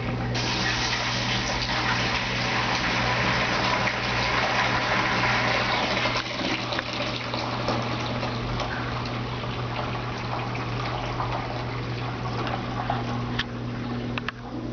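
Brastemp Ative BWL11AR top-load washing machine draining at the end of the wash: the drain pump runs with a steady hum while wash water rushes out. The rush of water is strongest for the first few seconds and eases after about six seconds.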